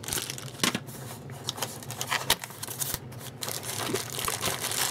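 Packaging being handled: a network cable's plastic bag crinkling and cardboard box inserts being knocked and scraped, as scattered short crackles and light clicks.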